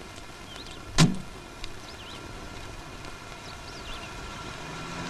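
A car door shut once with a sharp thud about a second in. Faint high chirps run in the background, and a low drone comes in near the end.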